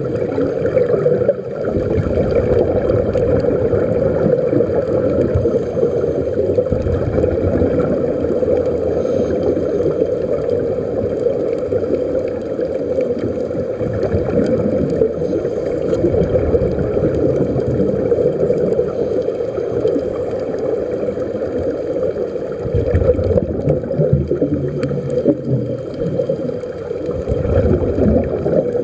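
Continuous underwater gurgling and rushing of water and air bubbles, muffled as heard by a camera under the sea.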